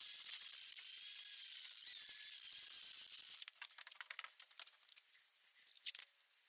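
Drill spinning a 500-grit sanding disc against a plastic headlight lens: a steady high hiss with a faint whine. It cuts off suddenly about three and a half seconds in, followed by a few faint light clicks.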